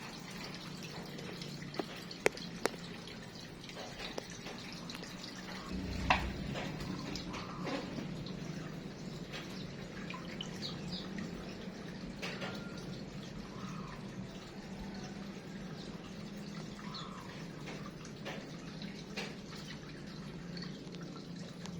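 Water dripping and trickling over a steady low hum, with scattered short clicks and a few brief faint chirps of small birds.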